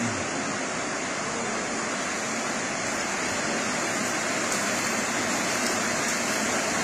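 Steady, even rushing of water, without breaks.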